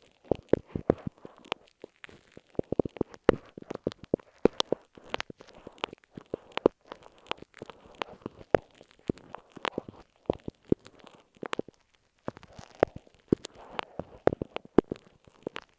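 A glue stick tapped and rubbed over masking tape on an earphone microphone: a dense run of irregular crackling taps and scratches close to the mic.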